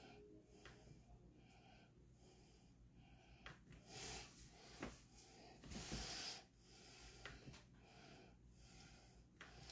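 Near silence: room tone with a few faint, short hissy noises and one faint click.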